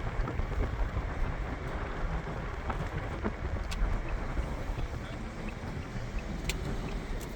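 Steady rushing, rumbling noise of wind on the microphone and road noise from a moving car, with a few faint ticks.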